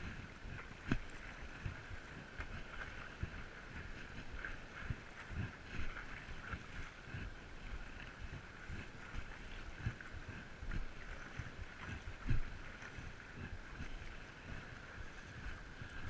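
Stand-up paddleboarding on the sea: water sloshing and splashing around the board and paddle, with irregular low thuds and wind buffeting a chest-mounted GoPro's microphone.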